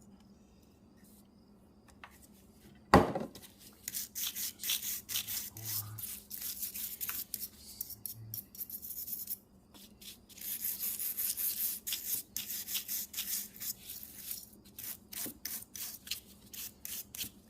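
Rapid, uneven scrubbing strokes on a small Tecumseh carburetor part as gummy fuel residue is rubbed off by hand. A single sharp knock comes about three seconds in, before the scrubbing starts.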